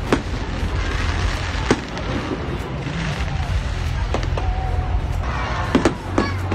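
Aerial fireworks bursting: a sharp bang at the start, another about a second and a half in, and two in quick succession near the end, over continuous background noise.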